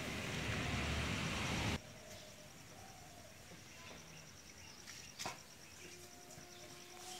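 Outdoor garden ambience: a steady rushing noise that cuts off abruptly about two seconds in, leaving a quieter background with an insect's rapid, evenly pulsed high chirping. A single click sounds about five seconds in, and a steady low hum-like tone comes in near the end.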